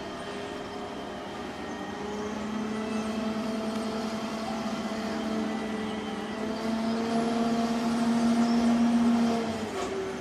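A large vehicle or machine engine running steadily, building in level and then easing off near the end.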